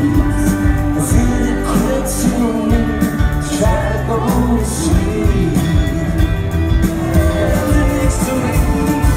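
Live rock band playing with a lead vocal, electric guitar and drums, with cymbal strokes recurring through it, heard loud from within the audience.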